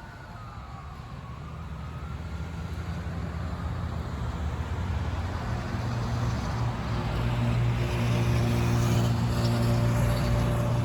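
Fire engine drawing closer, its engine note growing steadily louder and peaking near the end. A siren wail dies away in the first two seconds.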